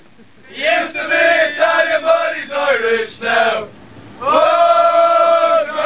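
Group of male football fans chanting a song together in short sung phrases with brief pauses, ending on one long held note near the end.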